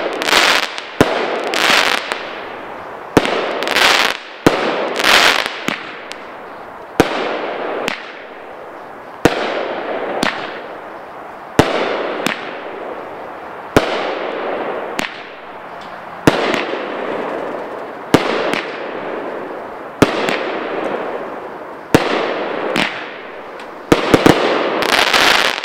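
A 16-shot consumer fireworks cake (Fast and Furious) firing its shots in sequence: a sharp bang about once a second, each trailed by a fading hiss, with a quick cluster of bangs near the end as it finishes.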